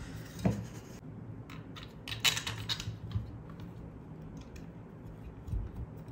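Small clicks, a knock and scraping of hard plastic and metal parts being handled: a fish-finder sonar transducer being fitted onto its plastic mounting bracket with a small screw. There is a sharp knock about half a second in, a longer scrape around two seconds in, and a dull thump near the end.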